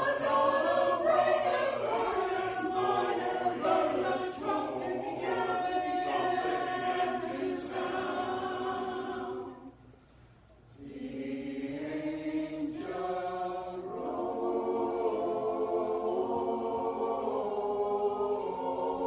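Choir singing in sustained, held chords, breaking off for about a second roughly halfway through and then starting again.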